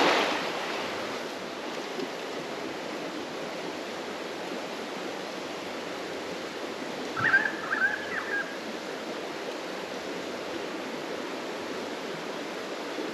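Steady rush of a flowing creek, with a short high chirping call about seven seconds in.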